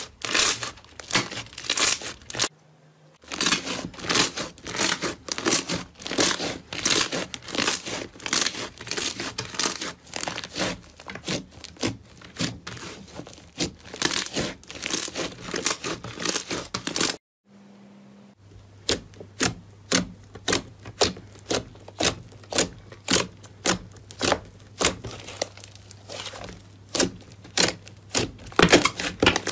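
Hands squeezing, pressing and stretching slime, giving a dense run of quick sticky crackles and pops. The sound breaks off twice briefly, about three seconds in and again past the middle, as one slime gives way to the next.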